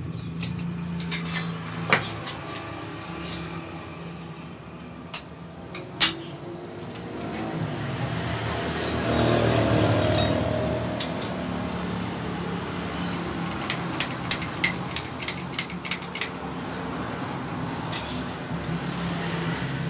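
Metal clinks as a motorcycle rear monoshock is reassembled in a spring compressor: a sharp knock about two seconds in, another about six seconds in, and a cluster of small clinks about two-thirds of the way through. Under them runs a steady engine-like hum that swells for a few seconds around the middle.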